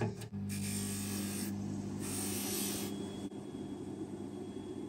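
Bench polishing motor running steadily with a stitched cloth buffing mop, while a steel watch bracelet is pressed against the spinning mop to buff out a scratch. It makes a rasping rub that comes in two stronger strokes, about a second long and then shorter, over the motor's steady hum.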